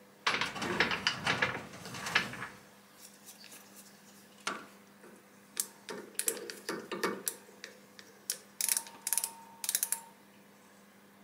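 A brief loud metallic clatter near the start, then a string of sharp clicks and short clicking runs as an outside micrometer is closed on a turned steel part with its ratchet thimble.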